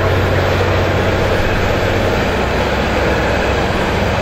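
Loaded articulated dump truck driving past, its diesel engine running steadily: a low hum under an even, broad noise.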